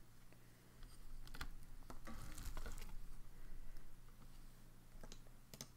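Light scattered clicks and rustling of small objects being handled on a desk, busiest in the middle, over a faint steady hum.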